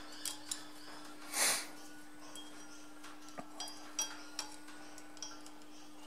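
Light metallic clicks of circlip pliers and a steel snap ring as the ring is worked onto a pivot shaft toward its groove, about seven sharp ticks spread out, over a steady low hum. A short, louder rush of noise comes about a second and a half in.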